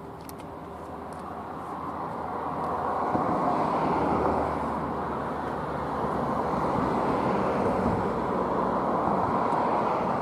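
Distant vehicle rolling noise, a rushing rumble that swells over the first three seconds and then holds steady and fairly loud.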